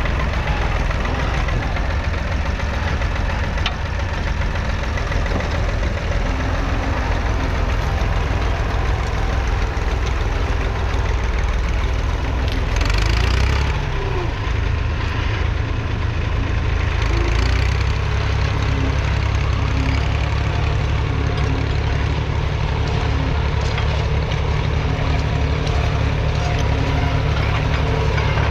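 1968 David Brown 780's 2.7-litre three-cylinder diesel engine running steadily. Its note shifts a little past the middle, after a brief rush of noise.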